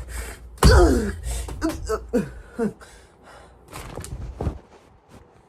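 A young person's wordless vocal sounds: a loud start, then several short cries that drop in pitch, fading out about four and a half seconds in.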